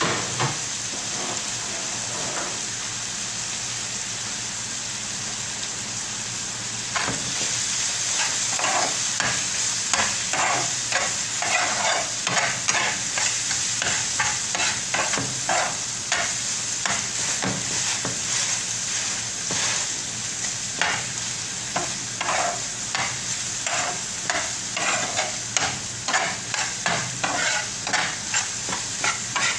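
Onion-tomato masala with spice powders sizzling in hot oil in a pan. From about seven seconds in, a spatula scrapes and stirs it in repeated short strokes.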